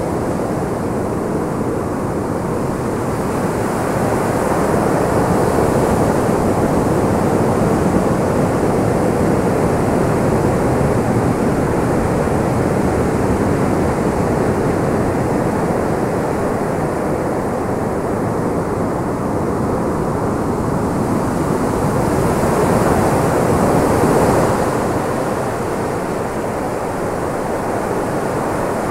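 Steady rushing noise, like a dull roar of wind or distant traffic, swelling slightly twice and then easing.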